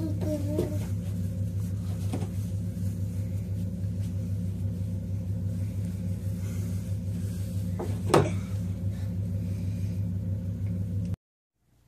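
Steady low mechanical hum at a constant pitch, with one sharp click about eight seconds in; it cuts off abruptly shortly before the end.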